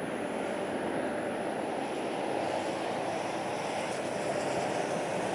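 Steady highway traffic noise as vehicles pass on the road, growing a little louder towards the end.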